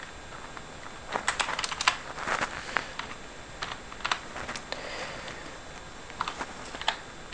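Typing on a computer keyboard: keystrokes come in short bursts of several clicks, with brief pauses between, as hex byte values are keyed into a hex editor.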